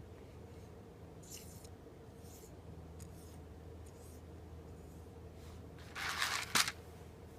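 Satake GA20RA roasted-coffee optical sorter running with a steady hum and faint short hissing bursts. About six seconds in comes a louder rushing burst that ends in a sharp click.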